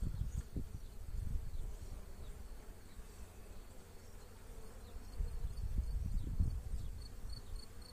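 Honeybees buzzing around a brood frame lifted out of an open hive, with a low uneven rumble underneath that grows louder in the second half. Near the end a faint high chirp repeats about three times a second.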